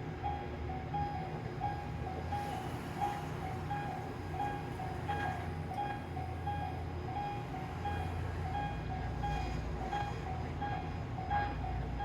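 Japanese railroad crossing alarm ringing its electronic 'kan-kan' bell, two alternating tones repeating about twice a second, over the low rumble of a train with a few sharp clicks from its wheels.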